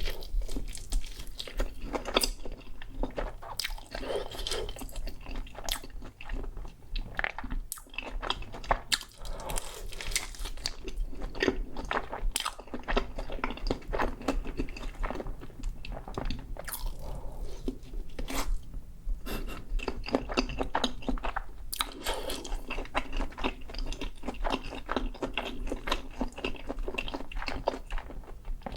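Close-miked biting and chewing of crispy fried Korean corn dog batter, with many sharp crunches one after another.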